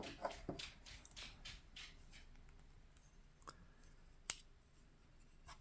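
Light metallic clicks and ticks of small folding-knife parts being handled during disassembly, several in quick succession in the first two seconds, then a single sharper click about four seconds in.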